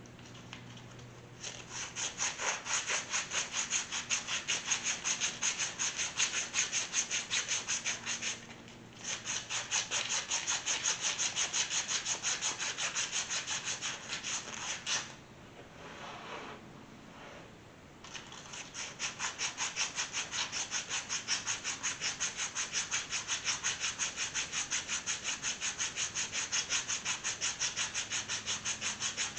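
Emery cloth rubbed back and forth by hand over the seal surface of a harmonic balancer hub, cleaning it up for a speedy sleeve. The strokes are quick and even, about four a second, in three long spells with two short pauses between them.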